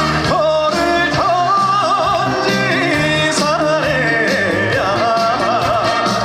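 Live trot music at full volume: a band playing under a lead melody line that wavers with heavy vibrato.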